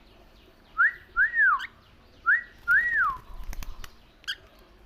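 Pet parrot whistling a two-note phrase twice, each note a quick rise and a falling glide, after a sung 'wid-wiw'. A few light clicks and taps follow near the end.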